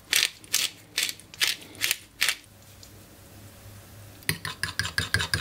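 Hand-held pepper mill grinding over a bowl in about six short turns. Near the end, a fork starts beating the egg mixture against a ceramic bowl in quick strokes.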